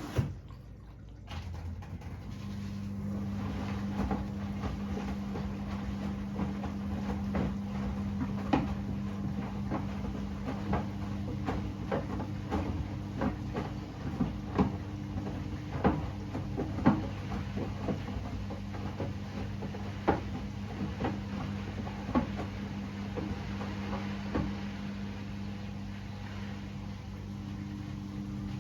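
Hoover H-Wash 600 washing machine mid-wash: after a sharp click and a short lull at the start, the drum motor starts up again with a steady hum, and irregular light knocks and clicks come from the load turning in the drum.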